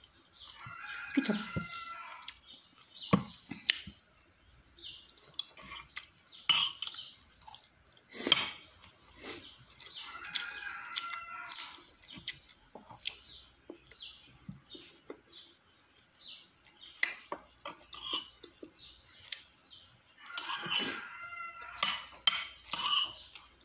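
Spoon and fork clinking and scraping on ceramic plates while eating rice and chicken adobo, in scattered sharp clicks. A drawn-out high call sounds in the background three times, about ten seconds apart.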